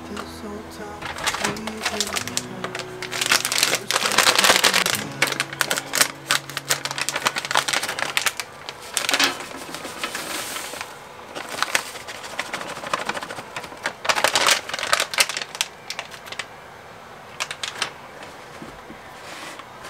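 Plastic pouch of peanut brittle mix crinkling while dry mix pours and rattles onto a metal sheet pan, in irregular crackly rustles. Background music fades out over the first few seconds.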